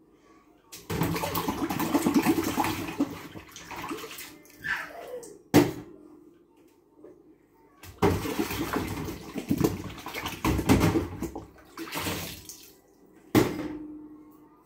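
Washing-up water sloshing and splashing in a kitchen sink as hands swirl dishes and glasses through it, in two long stretches. Two sharp knocks, about five and a half seconds in and near the end, are glassware or crockery hitting the sink, the second ringing briefly.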